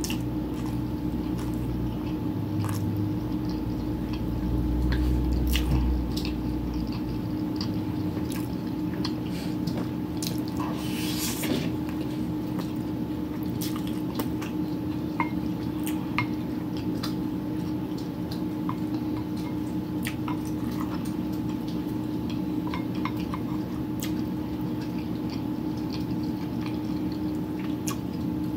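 Wet chewing and squishy mouth sounds of someone eating smoked sausage, with scattered light clicks and taps of a wooden spoon in a glass bowl of sauce and on a plate, over a steady low hum.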